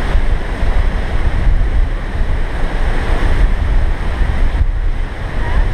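Heavy ocean surf breaking on the shore after a storm, with strong wind buffeting the microphone and a deep, gusty rumble.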